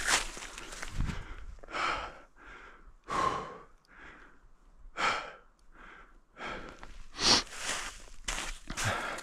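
A person breathing hard from exertion: heavy, noisy breaths about once a second with short pauses between, from a hiker labouring uphill on snowshoes.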